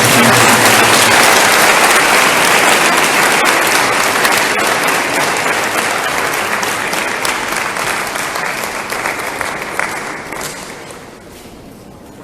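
Congregation applauding in a hall, loud at first and dying away about ten seconds in.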